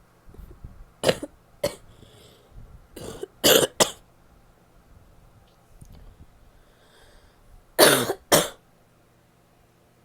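A woman coughing wet, barky coughs in three fits. There are two coughs about a second in, three around three to four seconds, and two more about eight seconds in, with a breath drawn in before the later fits.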